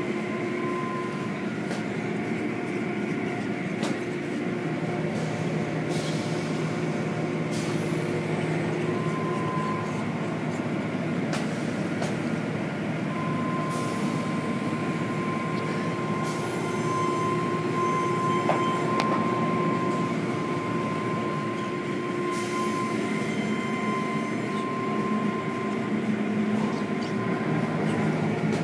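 Automatic car wash machinery running: a steady rumble and hiss of motors, pumps and spraying water, with a thin whine that comes and goes and a few short bursts of hiss.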